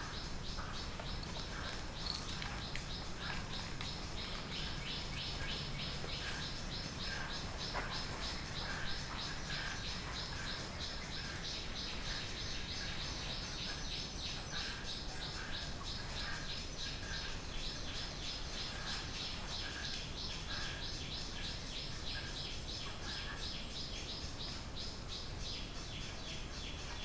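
Night ambience of chirping creatures: a steady, fast-pulsing high chirp with a lower chirp repeating about once a second.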